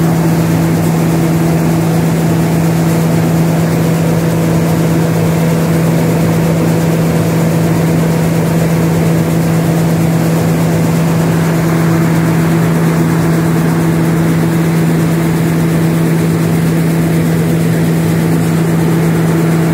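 Grain-processing machine running steadily: a loud, even mechanical hum with one strong low tone that never changes.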